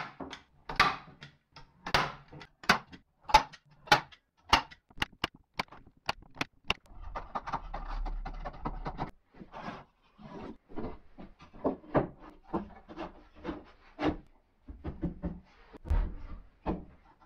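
Manual staple gun firing staples one after another, about two a second, sharp clicks as it tacks a mesh prefilter onto a wooden grid frame. Then scissors cut through the mesh for a couple of seconds, followed by irregular lighter clicks and knocks and a heavier dull knock near the end.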